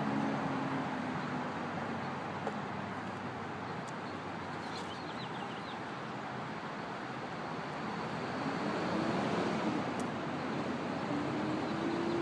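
Steady outdoor traffic noise, with a vehicle's low engine hum rising and then falling in pitch from about eight seconds in. A few faint high chirps about five seconds in.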